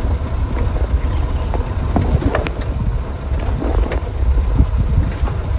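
Steady low rumble of wind buffeting the microphone, with a few faint, indistinct sounds in the background about halfway through.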